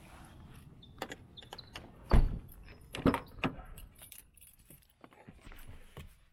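Keys jingling and several sharp clunks and thumps as the doors of a 2020 Honda City are opened and shut. The loudest comes about two seconds in and two more follow about a second later.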